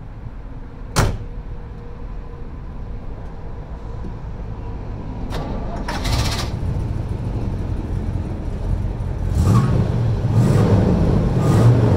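1971 Chevy C20's swapped-in 350 V8 running, a steady low rumble that grows louder over the last few seconds, with a sharp click about a second in.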